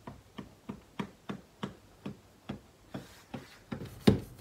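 Kitchen knife sawing through the baked crust of an apple pie on a wooden board: a steady run of short ticks, about three a second, with one louder crack near the end.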